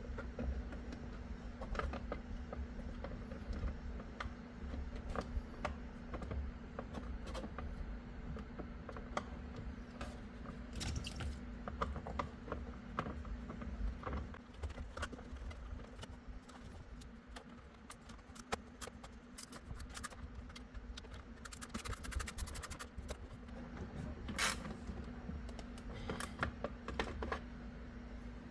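Small metal clicks, scrapes and jingles of hand tools and fasteners while a steering wheel is bolted back on, with a quick run of clicks like a ratchet about three-quarters of the way through. A steady low hum sits underneath.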